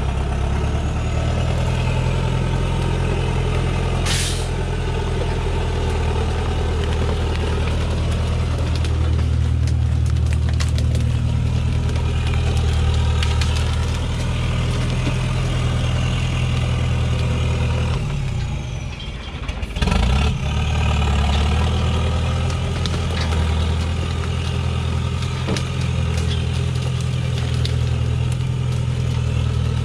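Engine of a heavily loaded logging truck running at low speed as it crawls over rough ground, with a short hiss about four seconds in. The engine dips briefly about eighteen seconds in, then picks up again.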